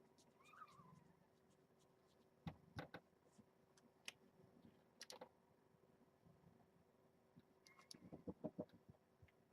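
Near silence with scattered faint clicks and taps: single ones a few seconds in and a quick run of them near the end. A faint short chirp sounds about half a second in.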